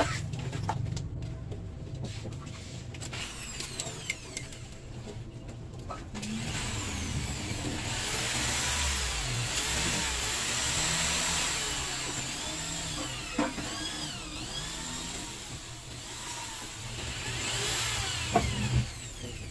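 A motor vehicle engine running nearby with a steady low rumble, growing louder through the middle and again near the end, as traffic does when it passes, with a few faint clicks.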